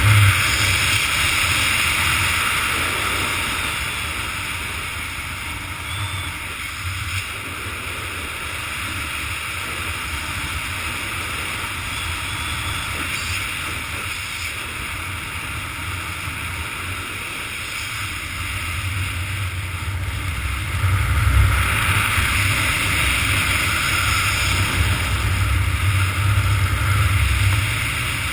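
Wind rushing over a helmet camera's microphone as a skydiver flies under an open parachute canopy, a steady rushing noise that swells louder in the last third.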